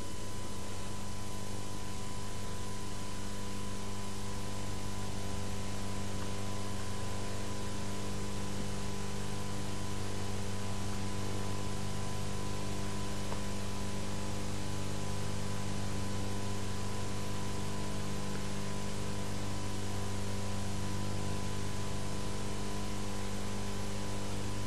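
Steady electrical mains hum with a stack of overtones, under an even hiss, unchanging throughout.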